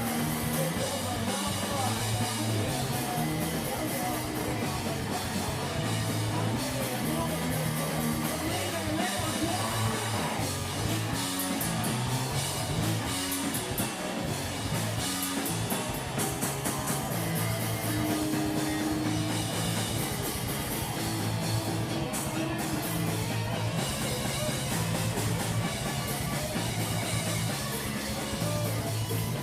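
Live rock band playing, with guitar and drum kit.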